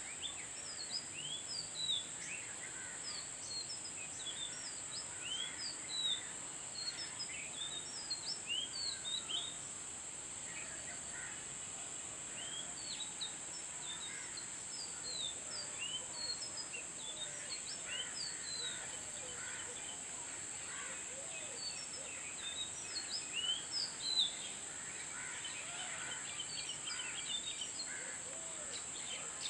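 Oriental magpie-robin singing: a long, varied run of short, quick whistled notes, over a steady high-pitched hiss.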